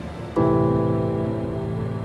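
Background music: a new sustained chord begins about half a second in and slowly fades.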